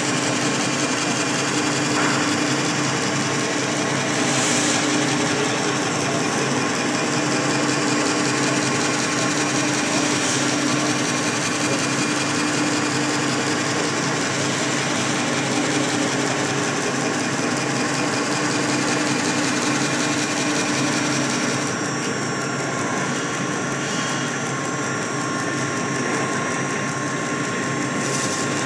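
Crankshaft belt-polishing machine running, abrasive belts pressed against the journals of a rotating crankshaft: a steady machine hum with a constant low tone under a hiss of belt on metal. The high hiss eases for several seconds near the end.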